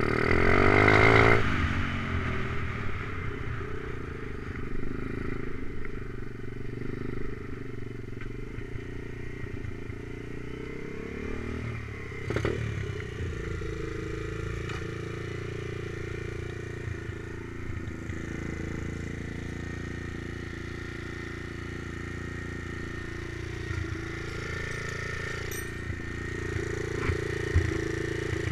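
Stomp pit bike's single-cylinder four-stroke engine revving up briefly at the start, then running at a steady idle. A single knock about twelve seconds in, and a few light clatters near the end.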